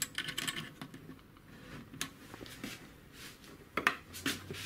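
Small metallic clicks of a threaded round cable connector being screwed onto a socket on a CNC router's control box: a quick run of clicks in the first second, then a few separate sharper clicks near the end as the cable is handled.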